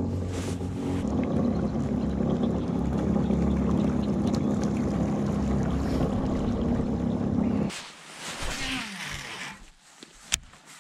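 Electric trolling motor running at a steady pitch, pushing the kayak along, then cut off suddenly about three-quarters of the way through. A brief soft hiss follows, then a single sharp click near the end.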